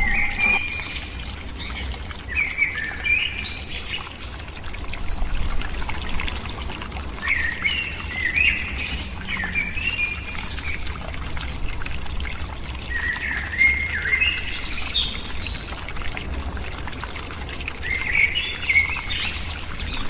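Small stream of water trickling from a spout into a pool, with birds chirping in short bursts of phrases every few seconds over it and a steady low hum underneath.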